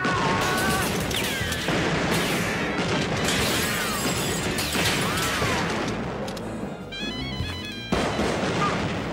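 Action-film soundtrack mix: dramatic music score with gunfire.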